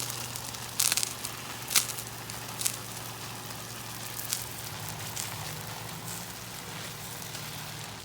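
Pressure washer gun spraying with a steady hiss, spitting with several sharp cracks in the first three seconds as trapped air purges from the lines, over a steady low hum. The spray cuts off abruptly at the very end.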